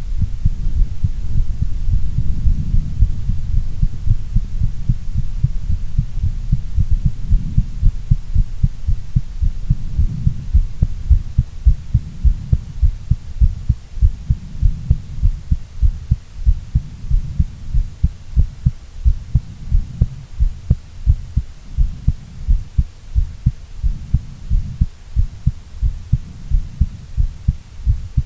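A woman's heartbeat: a steady run of low, muffled thumps. In the first half the beats sit in a continuous low rumble; from about halfway through they stand out more sharply, with clear gaps between them.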